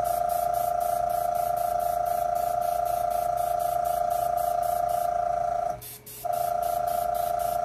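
Airbrush setup running, the compressor giving a steady high whine under a faint hiss of air that pulses about three times a second; the sound cuts out briefly about six seconds in.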